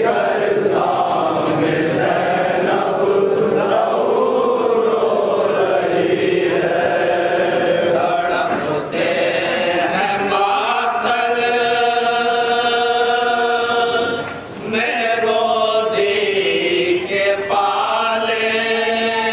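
Men's voices chanting a noha, a Shia mourning lament, in a group. From about ten seconds in the chant settles into long held sung notes, broken twice by short pauses.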